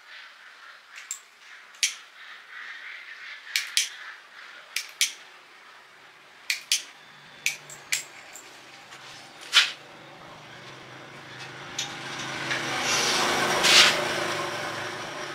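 About a dozen sharp clicks and knocks of handwork, then a steady machine hum that swells and is loudest near the end.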